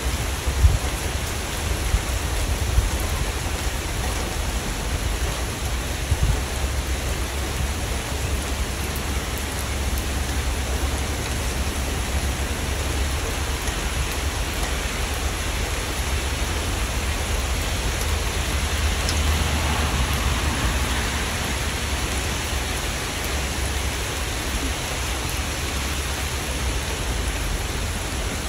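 Steady rain, a continuous hiss of falling drops over a low rumble, with a few louder drop hits in the first several seconds. It swells slightly heavier about two-thirds of the way through.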